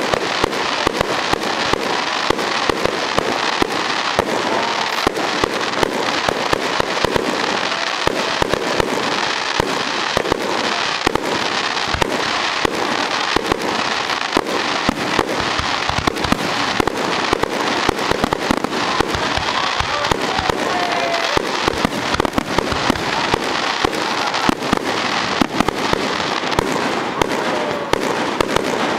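Fireworks display firing a dense, unbroken barrage of rapid bangs in quick succession, one report after another with no pause.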